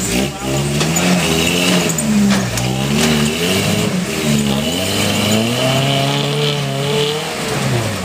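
Lifted Toyota pickup's engine revving hard in repeated surges, its pitch climbing and falling several times as the truck crawls up a rock ledge under load. Near the end the revs fall away as the truck tips over onto its side.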